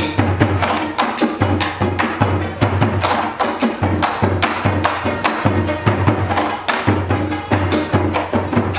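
Live taiko drumming: wooden sticks strike large taiko drums in a fast, steady rhythm, with plucked shamisen playing underneath.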